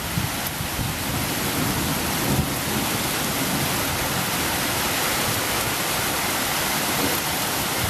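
Heavy thunderstorm rain pouring down in a dense, steady hiss, with a few brief low gusts of wind on the microphone.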